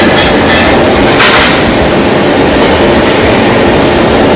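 Electric welding arc on a sheet-metal box, crackling loudly and steadily, with a few sharper pops in the first second and a half.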